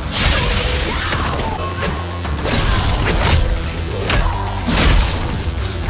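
Dramatic score music under a fight's sound effects: a heavy crash right at the start, then four more hits and crashes in quick succession over the second half.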